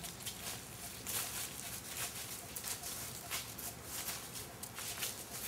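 Footsteps on dry leaf litter over a dirt trail: several people walking, with irregular crisp steps coming a few times a second.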